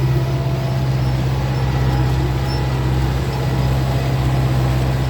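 Belarus 820 tractor's four-cylinder diesel engine running at a steady speed, a constant low drone.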